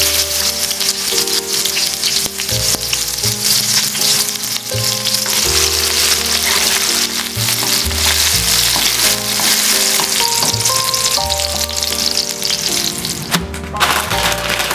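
Hot cooking oil sizzling in a pan as food fries, a steady hiss that drops out briefly near the end. Background music with a slow bass line plays underneath.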